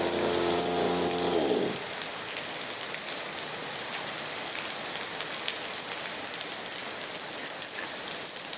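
Ogawa 26cc two-stroke brush cutter engine running, then winding down in pitch and stopping about a second and a half in. Steady heavy rain falling is left after it.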